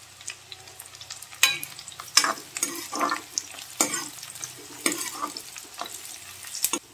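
Sliced onions frying in hot desi ghee in a metal kadhai, a steady sizzle, with a metal spoon scraping and clinking against the pan several times as the onions are stirred.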